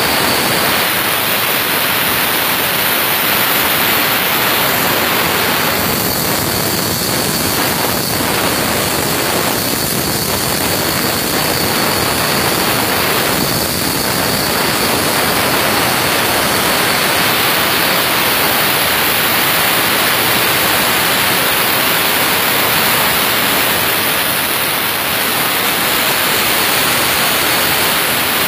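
CNC plasma torch cutting through 30 mm steel plate: the arc and its gas jet make a loud, steady hiss.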